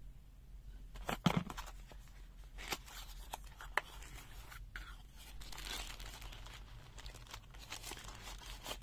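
Packaging being handled and opened: faint rustling and crinkling with scattered small clicks and scrapes as the box and its contents are unpacked.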